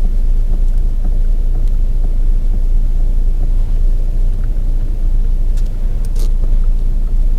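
Steady low rumble of a running Skoda Octavia A7, with a few faint clicks about two-thirds of the way through.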